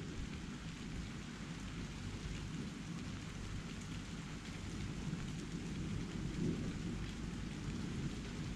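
Steady rain falling, with a continuous low rumble beneath it that swells slightly about two-thirds of the way through.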